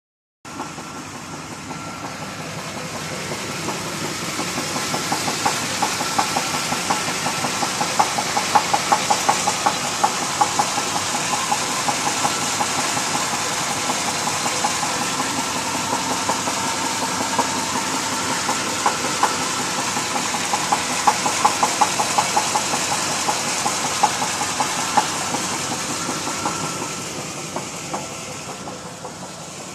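1991 Chevy K1500's 305 V8 engine running with repeated sharp knocks over the steady engine sound, the sign of a worn connecting rod bearing.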